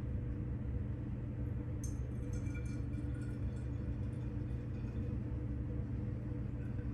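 Steady low hum, with faint light clicks and trickling from about two seconds in as yeast water is poured into small plastic bottles.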